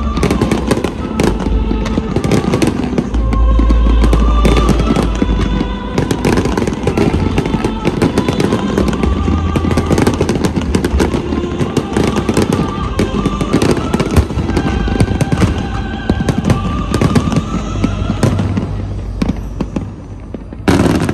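A fireworks display going off: many rapid bangs and crackles over a deep rumble of larger shells, with music playing underneath. It thins out briefly near the end, then comes back with a sudden loud burst.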